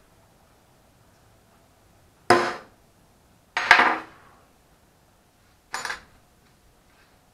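Three sharp metal-on-metal strikes of a hammer on a steel number stamp, punching a figure into a cast aluminium ingot. Each has a short ringing tail. The middle strike comes as a quick double blow.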